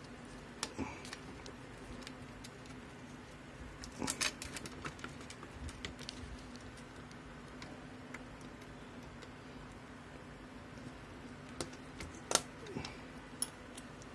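Scattered light clicks and taps of laptop parts being handled during reassembly, with a cluster about four seconds in and a sharper click near the end, over a faint steady hum.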